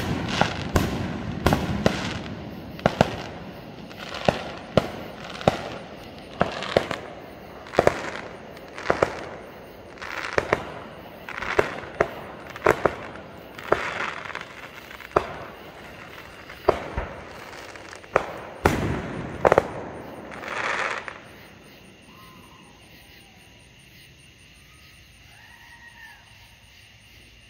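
Aerial fireworks going off: a long, irregular string of sharp bangs and crackles, about one or two a second, which stops about 21 seconds in. After that it is quiet, with a few faint chirps.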